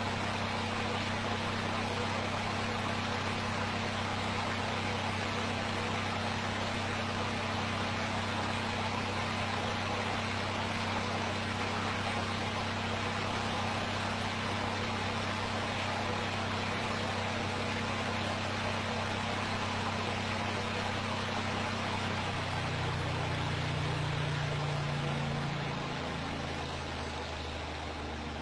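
Spinning LED fan clock, its small motor and rotating arm running with a steady low hum under an even whirring hiss. The hum changes pitch about three-quarters of the way through, and the sound eases off slightly near the end.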